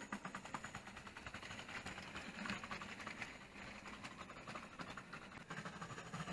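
Hornby OO gauge model train running on its track: the small electric motor hums steadily under a rapid, continuous stream of light clicks and rattles from the wheels on the rails.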